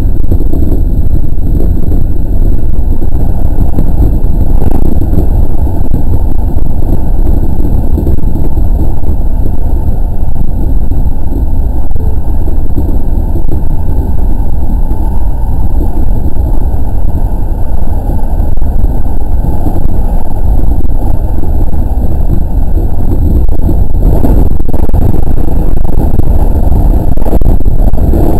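Steady running noise of a 207 series electric train at speed, heard inside the train: a loud, even rumble of wheels on rails and traction equipment.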